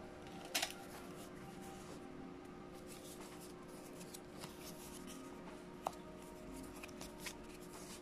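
Cut corrugated cardboard pieces being handled and slid on a tabletop: scattered rustles, scrapes and light taps, the loudest a short scrape about half a second in and a sharp tap near the six-second mark, over a steady low hum.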